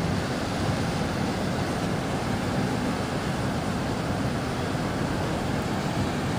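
Large vessel's engines running: a steady low rumble with an even hiss over it.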